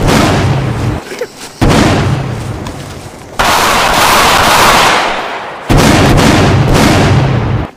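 Explosions going off one after another. A blast dies away near the start, then three more sudden blasts come about one and a half, three and a half and five and a half seconds in, each rumbling on and fading over a couple of seconds.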